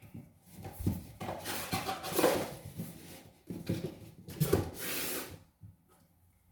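Rustling and rubbing of an Echo Dot's packaging and contents being handled, with a few light knocks; it stops about five and a half seconds in.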